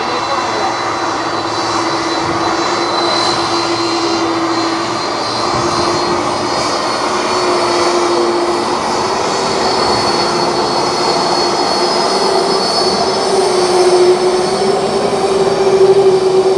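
Twin jet engines of a Boeing 767-300ER airliner running at taxi power: a steady loud rush with a hum and a high whine, whose pitch and loudness creep up slightly near the end.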